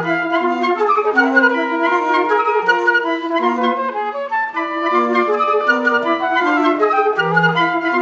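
A flute quartet playing, several flutes in interlocking parts of short, quick notes, with a lower held note near the start and again near the end.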